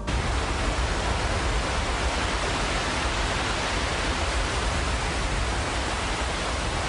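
Rushing river water, a steady roar that cuts in suddenly at the start: a raging river in flood from an open dam gate.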